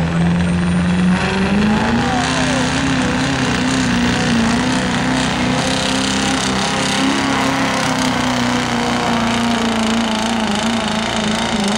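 Diesel pickup truck engine at full throttle pulling a weight-transfer sled. The revs climb over the first two seconds, then hold high and steady with small dips as the truck works down the track.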